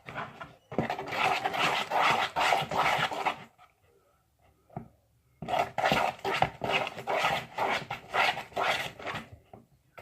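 Sticky, wet squelching and clicking of slime being stirred with a spoon in a bowl as it forms, in two long stretches with a short pause between.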